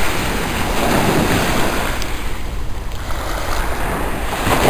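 Small sea waves breaking and washing up the sand at the water's edge, surging about a second in and swelling again near the end, with wind buffeting the microphone.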